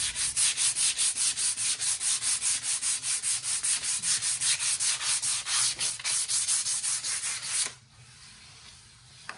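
Sandpaper rubbed by hand across a stained wooden board in quick back-and-forth strokes, about five a second. The sanding knocks down grain raised by the first coat of water-based stain. It stops near the end.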